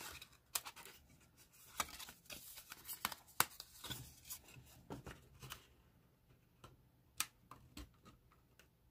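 Paper gift-card holder and plastic gift card being handled: light paper rustles and scattered small clicks and taps as the card is folded into the holder and tucked into its slots, with a sharper tap about three and a half seconds in.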